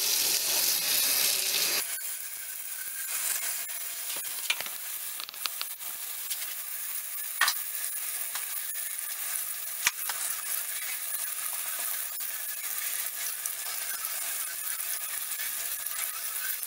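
Hot water running from a kitchen faucet in a steady stream, at first splashing straight into an empty stainless steel sink. About two seconds in the sound drops and softens as the stream is turned onto a 3D-printed figure held in the hands, with a few faint clicks.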